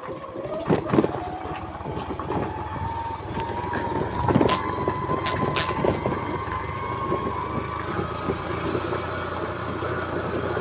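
Motorcycle engine running while riding along a stony dirt track, its whine rising slowly in pitch. Several sharp knocks and rattles come from the bumpy ground, about a second in and again around the middle.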